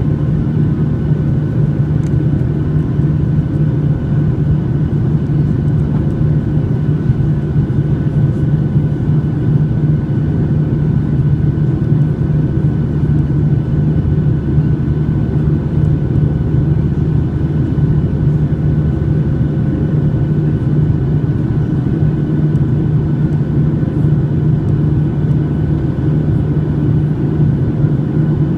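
Steady drone of a Boeing 737-800's CFM56 turbofan engines and airflow, heard inside the cabin from a window seat. A deep hum with a few faint steady whining tones above it holds an even level throughout.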